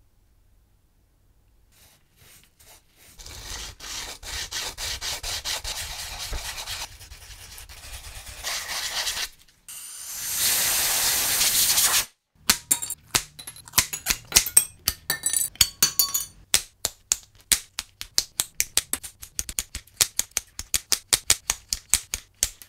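Abrasive rubbing over a red-coated sheet-metal plate, sanding the coating off the raised embossed score digits; it starts about three seconds in and is loudest just before the halfway point. Then a rapid run of sharp clicks, about four a second, as metal shears snip the thin sheet around the digits.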